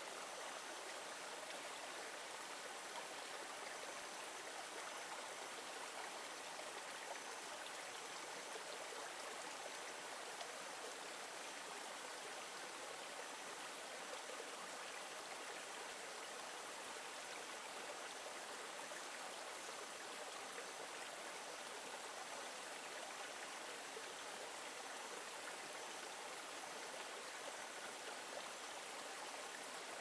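Shallow rocky stream running steadily, water trickling and splashing in a small cascade over a log and stones.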